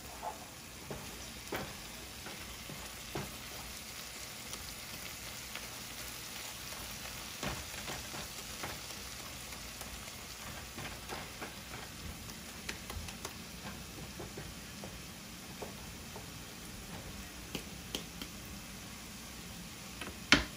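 Chopped tomato, onion and garlic sizzling in oil in a nonstick frying pan while a wooden spoon stirs and scrapes through it, with scattered light clicks of the spoon against the pan. One sharp knock near the end.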